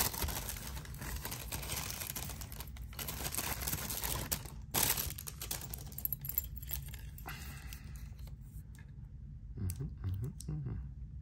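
Clear plastic packaging crinkling and rustling in the hands as a wristwatch is unwrapped. The rustling is steady and dense, then dies down about seven seconds in.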